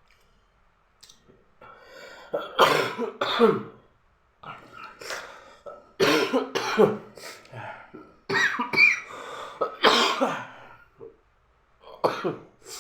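A man's dry cough: about six coughing fits in a row, each starting abruptly, mixed with throat clearing.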